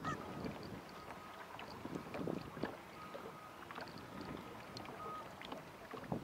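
Small waves lapping and slapping irregularly against an aluminum boat hull, with wind on the microphone.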